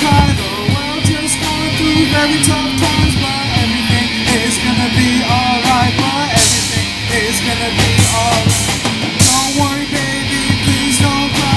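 Live rock band playing: electric guitars and bass over a drum kit, with a sung vocal line. Cymbal crashes ring out a little past six seconds in and again about nine seconds in.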